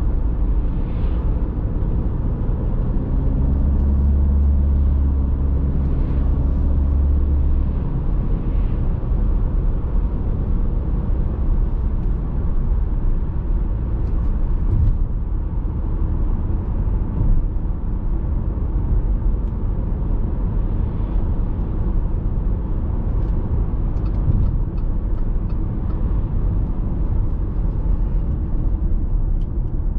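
Audi A6 C6 2.0 TDI four-cylinder diesel saloon cruising on an expressway: steady road and wind noise over the engine's drone. A deeper low hum swells for a few seconds near the start.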